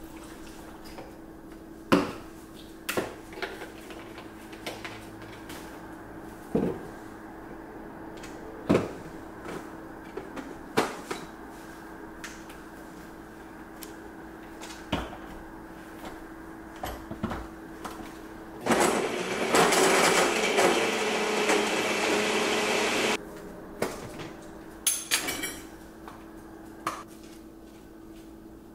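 Kitchen clatter: sharp knocks and clicks of dishes, utensils and containers set down on the counter, over a steady low hum. About two-thirds of the way through, a countertop blender motor runs for about four and a half seconds and stops abruptly.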